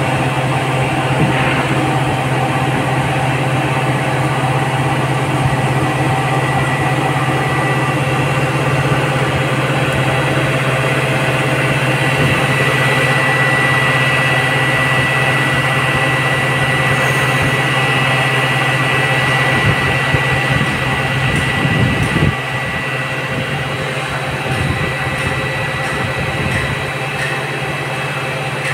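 XCMG XCT60 truck crane's diesel engine running steadily while the crane lifts a steel duct section. It drops a little in level about two-thirds of the way through.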